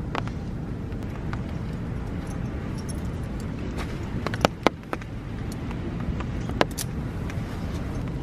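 Metal carabiner clicking as a tarp guy line is clipped onto a tent peg: two sharp clicks close together about halfway through, and one more later, over a steady low rumble.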